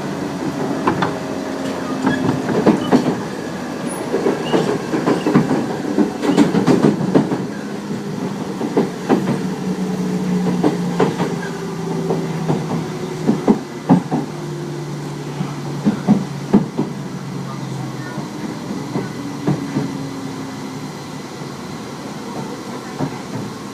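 Tobu 30000-series electric train slowing down: the traction motor and inverter tone steps down in pitch while wheels clack over rail joints, growing quieter toward the end. The uploader believes this set has permanent-magnet synchronous motors.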